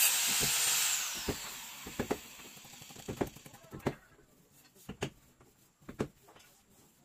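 A power tool whirring and spinning down, its whine falling in pitch over the first two seconds, followed by scattered light knocks and clicks.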